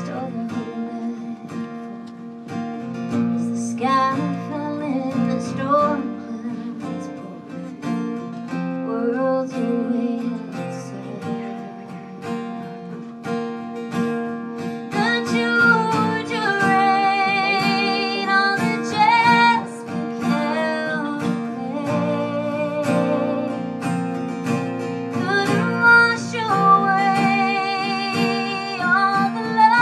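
Live country song: acoustic guitar strumming, with a woman singing long held notes with vibrato in the second half.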